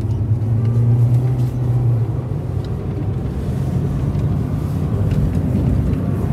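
Car cabin noise while driving at steady speed: a low engine and road hum with tyre noise from the paved road, swelling slightly in the first couple of seconds.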